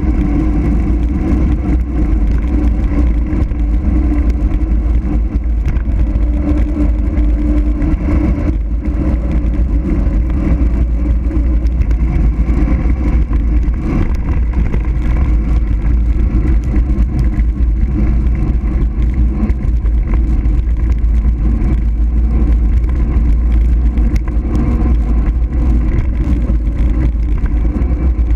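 Wind buffeting the microphone of a camera riding on a mountain bike during a fast road descent: a loud, steady, deep rumble of rushing air that does not let up.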